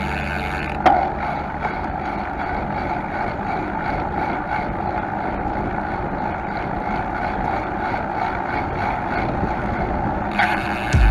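Bicycle tyre rolling on asphalt, a steady noisy hum from the front wheel, with one sharp tick a little under a second in.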